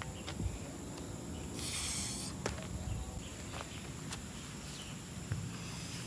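A person climbing into a hammock slung from wooden construction braces: a brief rustle about two seconds in and a few light knocks, over a faint steady insect drone.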